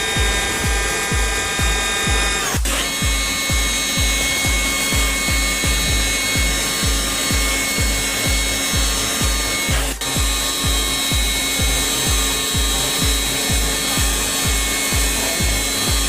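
Background music with a steady beat, about two beats a second, over the steady whine of a power tool. The whine's pitch changes abruptly twice.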